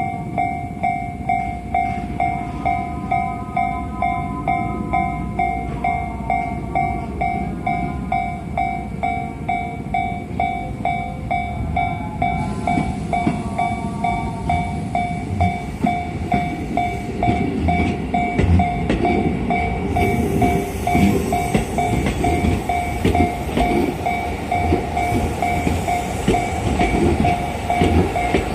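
Japanese level-crossing warning bell ringing in a fast, even ding rhythm throughout, with a higher chime sounding in short spells during the first half. About halfway through, a Tobu 10030-series electric commuter train runs over the crossing, its rumble and the clacking of its wheels over the rail joints growing loud and staying so.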